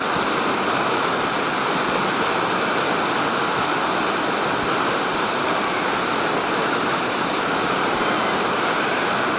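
Steady rush of whitewater pouring through a river rapid, an even, unbroken noise of churning water.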